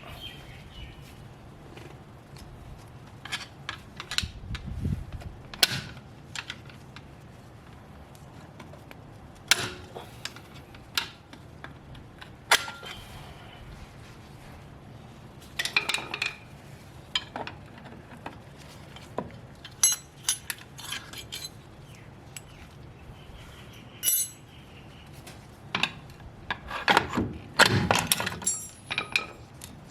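Irregular metal clinks and clicks of hand tools and rear drum brake hardware (shoes, return springs, hold-down clips) as the brake shoes are taken off a Toyota Hilux, with a busy run of clanks near the end.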